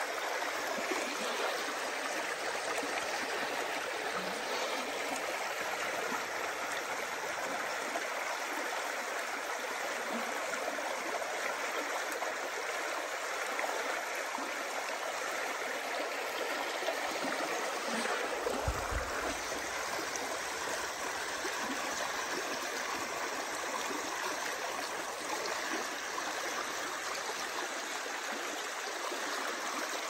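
Fast-flowing river water rushing and churning over rocks in a shallow riffle, a steady, even rush. One brief low bump about two-thirds of the way through.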